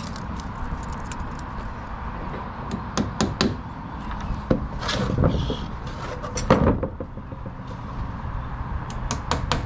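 Claw hammer driving a tacking nail through a plywood valley board into a timber roof truss: a run of sharp strikes, the loudest about six and a half seconds in. A few lighter clicks come near the end, over a steady low rumble.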